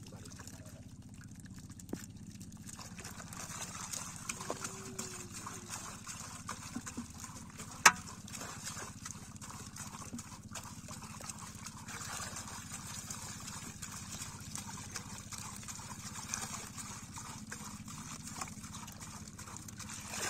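Water sloshing and splashing as hands work fish out of a net in shallow water, with small irregular splashes and plastic-bowl knocks over a steady low hum; one sharp knock about eight seconds in.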